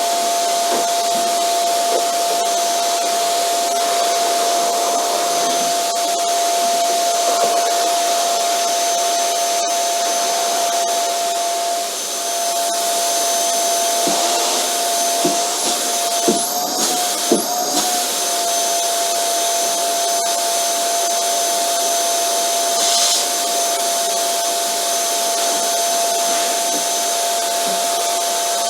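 Vacuum cleaner running steadily: an even rushing of air under a constant motor whine. A few brief knocks come about halfway through, and the whine wavers for a moment.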